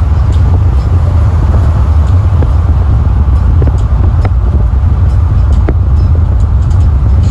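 Loud, steady low rumble of wind and road noise at an open car window, with a few faint clicks, as a freight train of autorack cars rolls past beyond the highway.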